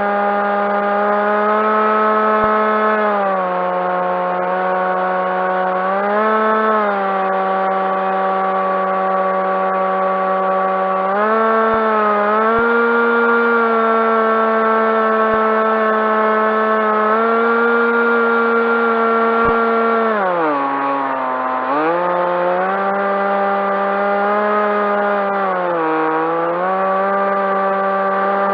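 Electric motor and propeller of a Skywalker RC plane whining in flight, its pitch stepping up and down with throttle changes several times. About 20 seconds in, the pitch drops sharply as the throttle is pulled back, then comes up again.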